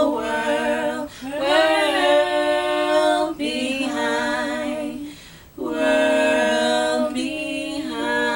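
Unaccompanied gospel singing. The voices hold long notes, waver in pitch about two seconds in, and break off briefly about five seconds in before coming back in.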